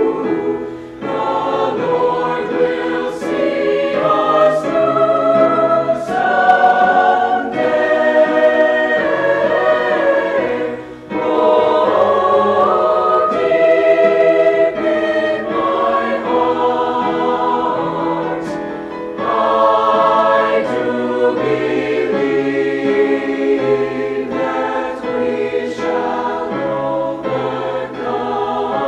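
Mixed high school choir singing a sustained choral piece with piano accompaniment, with short breaks between phrases about a second in and again about eleven seconds in.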